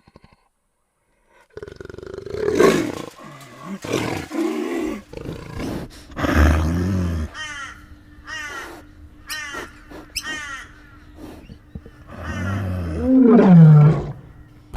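A large animal roaring and growling in a series of separate calls, with short falling calls in the middle and the loudest roar near the end dropping in pitch.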